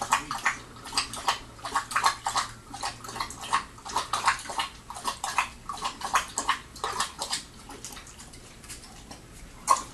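Rhodesian Ridgeback puppy feeding from a stainless steel bowl: a quick, irregular run of wet mouth sounds against the bowl, a few a second. They stop about seven and a half seconds in, with one more near the end.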